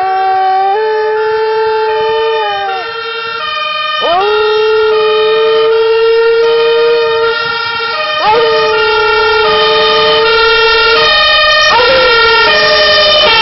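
Beagle howling along with a fire engine's two-tone siren. There are four long howls, each sweeping up quickly, holding and dropping away at the end, over the siren alternating steadily between two pitches.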